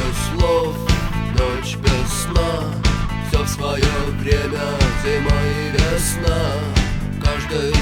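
Rock band playing: a steady drum beat with electric guitar, in a stretch of the song where no words are sung.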